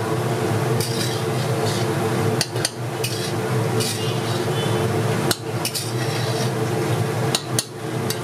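Metal utensils clanking and scraping against a large metal cooking pot, in scattered knocks, over a steady background hum.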